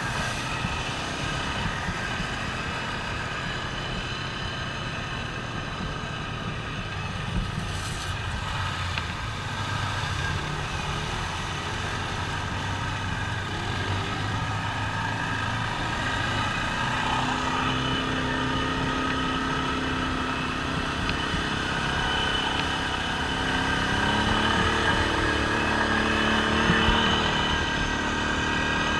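ATV engine running while being ridden over a gravel creek bar, its pitch rising and falling with the throttle, and a little louder in the second half.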